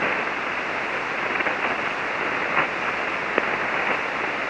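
Ham radio receiver in single-sideband mode on the 40-metre band, giving an even hiss of band noise and static with a few faint clicks. The frequency is open, with no station transmitting.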